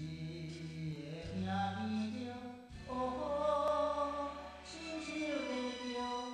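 Music with a voice singing long, held notes.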